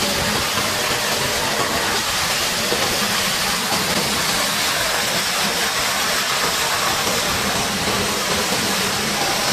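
High-pressure water jet spraying steadily against a bulldozer's steel body, a constant loud hiss.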